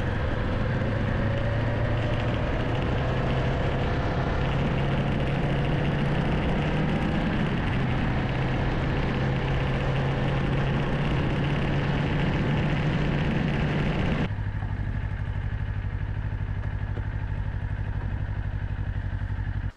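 Kawasaki Ninja 500 parallel-twin engine running under wind and road rush while riding; about fourteen seconds in, the rushing noise drops away suddenly, leaving the engine idling steadily.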